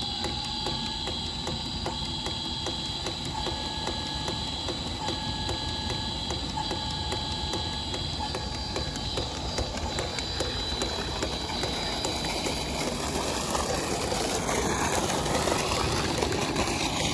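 Electric water pump motor running with a fast, even mechanical ticking and a steady whine. Toward the end the rush of water pouring out of the outlet pipe grows louder.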